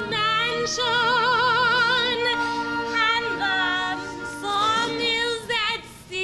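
Operatic singing: a high female voice with wide vibrato over sustained instrumental accompaniment. The sound drops away briefly just before the end.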